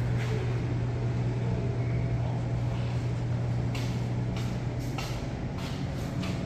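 Refrigeration unit of a newly installed walk-in freezer running on its test run, a steady low hum. From about four seconds in, a few short hissy strokes sound over it.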